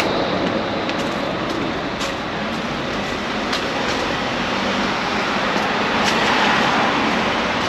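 Steady city street traffic noise from a busy road, swelling as a vehicle passes about six seconds in.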